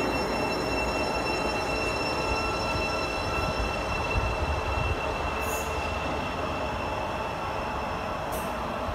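Test train running away along the line: a low rumble that fades slowly as it draws off, with steady high-pitched whining tones over it and two brief hisses in the second half.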